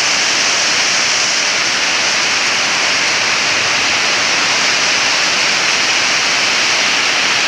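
Very heavy tropical rain falling in a steady, loud hiss.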